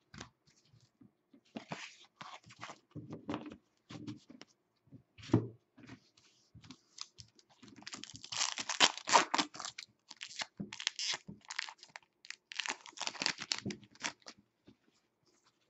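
A 2015-16 SP Authentic hockey card pack wrapper being torn open and crinkled by hand, loudest about halfway through and again near the end, with light rustling and clicking of cards being handled beforehand.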